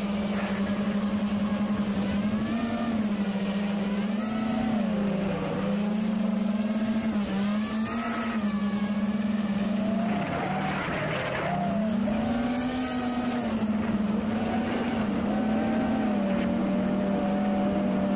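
Beagle Drone Kit 2 FPV quadcopter's brushless motors and propellers whining, heard from the camera mounted on the drone. The pitch rises and falls as the throttle changes in flight and drops lowest about eleven seconds in.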